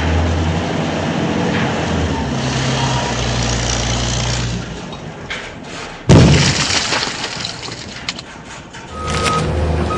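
A steady low vehicle-engine rumble for about five seconds, then a sudden loud crash or bang about six seconds in, and the rumble starting up again near the end.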